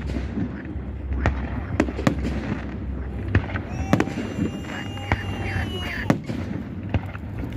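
Fireworks display going off: a rapid, irregular string of bangs and crackling bursts, with frogs croaking in the background.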